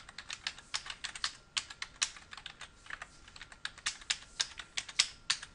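Computer keyboard typing: a rapid, uneven run of key clicks.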